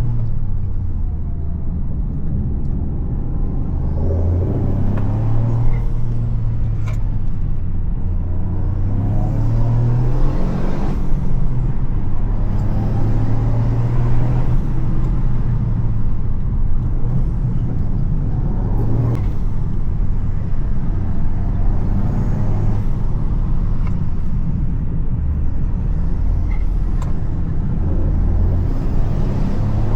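Toyota GR Yaris's turbocharged 1.6-litre three-cylinder engine running under way, its note rising and falling several times.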